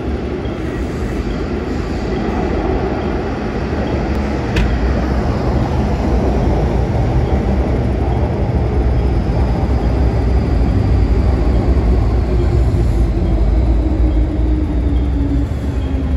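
Interior running noise of an MTR Kwun Tong Line M-train: a steady rumble of wheels on track with a traction-motor whine that falls slowly in pitch over the last few seconds. A single sharp click about four and a half seconds in.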